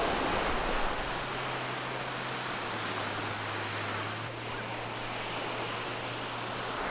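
Waves breaking and washing up on a sandy beach: a steady rush of surf, with a faint low hum underneath for most of the time.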